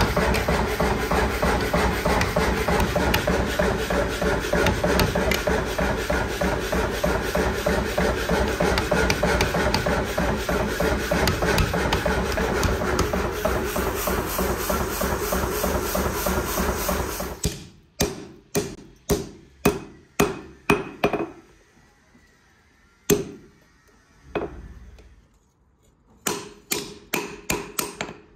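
Background music for about the first seventeen seconds. Then hand-hammer blows on a steel knife blade on an anvil: a quick run of about seven strikes, two single blows, and another fast run of about six near the end.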